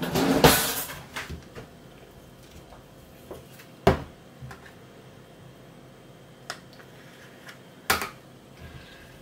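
Kitchen handling sounds: a short scraping rustle at the start, then a few sharp clicks and knocks, the loudest about four seconds in, as a spoon works a jar of refined coconut oil into a saucepan at the stove.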